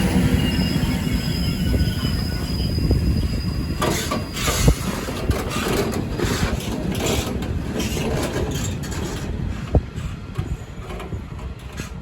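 A Vossloh G1206 diesel-hydraulic locomotive with a short work train passes over the rails with a steady low rumble. A thin high wheel squeal is heard in the first few seconds, then the wheels clatter and knock over the rail joints. The sound fades toward the end.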